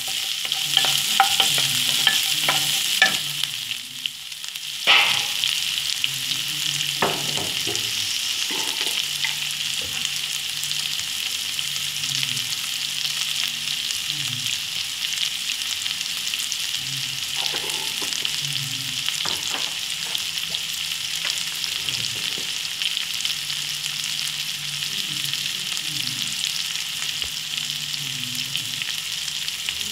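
Garlic, curry leaves and dal sizzling steadily in hot oil in a pan. In the first few seconds a wooden spatula scrapes and knocks repeatedly against the pan, and there is one sharp, loud knock about five seconds in.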